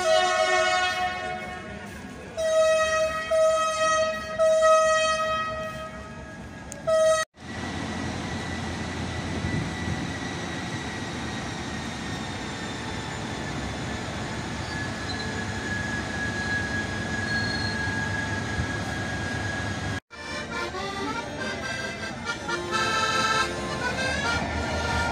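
CC72000 diesel locomotive horn sounding long, held blasts, then the locomotive's diesel engine running steadily. Near the end, shorter notes that change in pitch.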